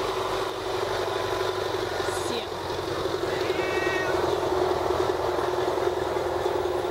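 Domestic cat giving one short, high-pitched meow about three and a half seconds in, over a steady hum like an idling engine.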